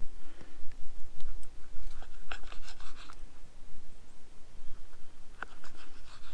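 Multitool knife blade slicing through a chorizo sausage on a wooden chopping board: scattered light taps and scrapes as the blade cuts through and meets the board. They come in a cluster about two to three seconds in and again near the end.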